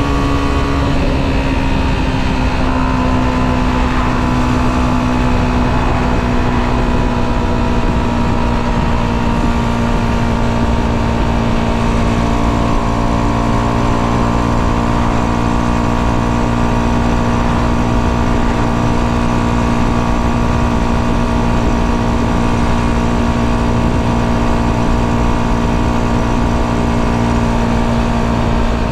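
Tuned 125cc motorbike engine, with modified intake and exhaust and advanced ignition, running steadily at cruising speed along with wind and road rush. Its pitch sinks slightly and slowly over the stretch.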